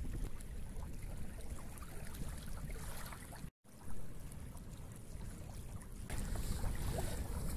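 Wind rumbling on the microphone over small waves lapping in shallow water, with a brief total gap about three and a half seconds in where the shot changes.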